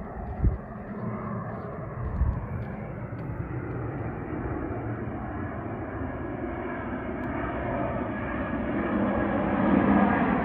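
Aircraft engine noise slowly growing louder as a plane approaches overhead. Two short low thumps sound near the start.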